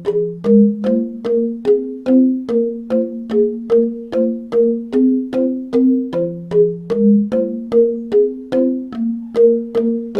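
Instrumental music: a steady run of short, sharply struck keyboard notes, about two or three a second, with a higher and a lower line moving together.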